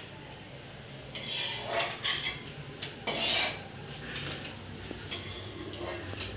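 Steel slotted spoon scraping and clinking against a steel kadai as crisp fried onions are scooped out of the frying oil, in three bouts about a second, three seconds and five seconds in.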